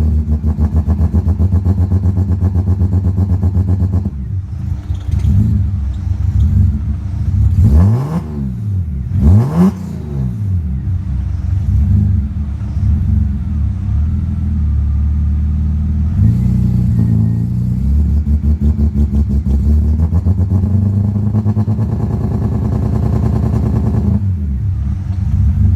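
BMW M52B28 straight-six engine idling unevenly with a pulsing beat. It is revved briefly twice, about eight and nine and a half seconds in, each time rising and falling back. The engine rev-hunts and has trouble holding a steady speed off idle, a fault the owner has had since driving through water.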